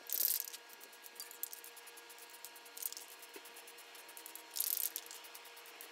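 Rust-Oleum aerosol spray paint can giving two short hisses, one at the start and one about three-quarters of the way through, with faint rubbing and handling of the can in between.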